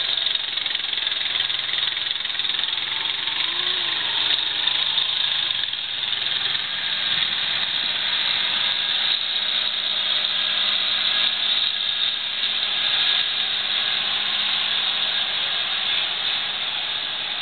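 New Holland TS110 tractor's diesel engine running steadily at work, faint under a steady hissing noise.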